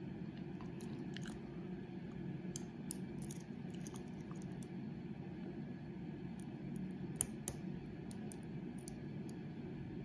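Hook pick clicking and scraping against the pin tumblers of a large Ace padlock while tension is held on the core. The clicks are small and scattered, with two sharper ones about three and seven seconds in, over a steady low hum.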